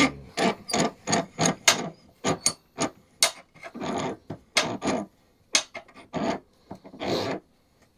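Quick back-and-forth strokes of a hand file rasping on the vise's metal, about fifteen short scrapes with brief gaps between them, taking down the excess weld.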